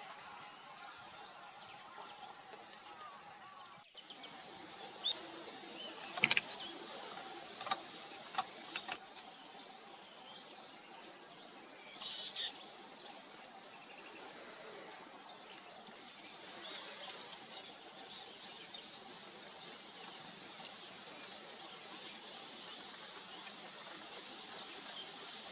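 Short, high bird chirps and calls scattered over a steady outdoor background hiss. A cluster of sharp chirps and ticks comes about five to nine seconds in, and a few more about twelve seconds in.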